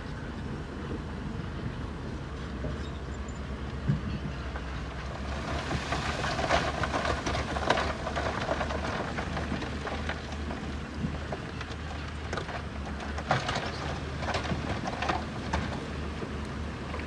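Heavy diesel earthmoving machine running with a steady low rumble, while rocks clatter and grind against each other as stone is pushed or dumped. The rattling of stones builds about five seconds in, is heaviest for a couple of seconds, and rises again later.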